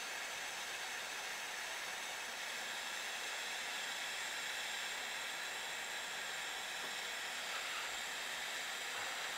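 Aldi Work Zone butane soldering iron running in torch mode, its blue flame held on a wire: a steady hiss of burning gas.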